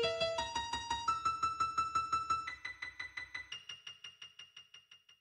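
Computer-generated sonification of a maple twig's diameter measurements: rapidly repeated piano-like electronic notes whose pitch steps upward several times while the sound fades away and stops near the end. The pitch follows the twig's thickness, higher for a fatter twig.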